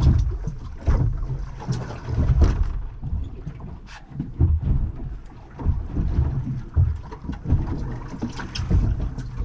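Wind buffeting the microphone aboard a small boat at sea: an irregular low rumble that rises and falls in gusts, with a few light ticks and knocks.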